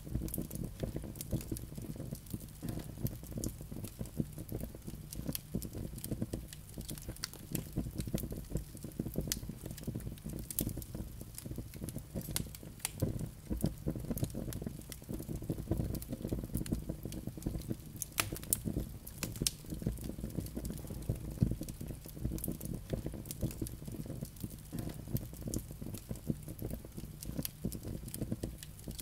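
Wood logs burning in a fireplace: irregular sharp crackles and pops over a steady low rush of flame.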